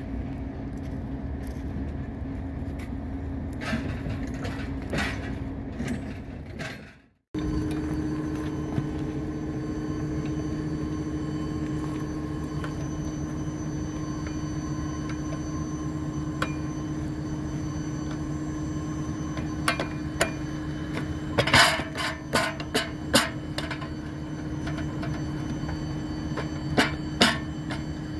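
Steady hum of an engine running. Past the middle comes a quick series of sharp metal knocks and clinks, with two more near the end, as crewmen work steel tools on the fresh rail weld. The sound cuts out briefly about a quarter of the way in.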